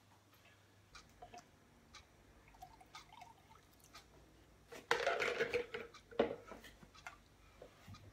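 Vegetable stock being poured from a plastic jug into a pot of thick blended tomato soup and stirred in, with small clicks of the utensils against the enamelled pot. A louder stretch of pouring and stirring comes about five seconds in, with a shorter one just after.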